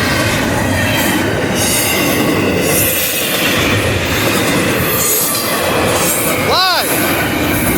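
CSX double-stack intermodal freight train passing at about 46 mph: a steady, loud rumble and rattle of wheels on rail with a high squealing edge. About two-thirds of the way through, a short pitched squeal rises and falls.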